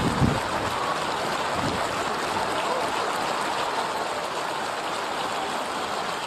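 Stadium crowd ambience: a steady wash of murmur from the stands, with a brief low thud about a quarter second in.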